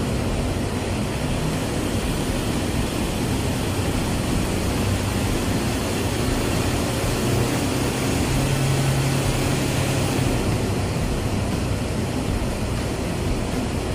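Toyota Fortuner's 2.5-litre turbodiesel running steadily while mounted on a hub dyno, a loud even mechanical noise with a low hum that swells for a couple of seconds past the middle.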